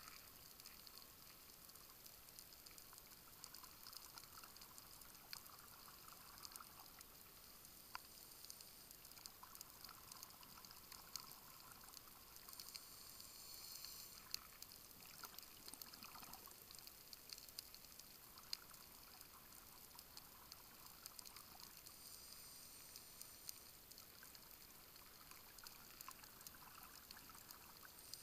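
Faint underwater sound picked up through a dive camera's waterproof housing: a steady hiss with scattered small clicks and, every few seconds, the soft muffled bubbling of scuba divers' exhaled air.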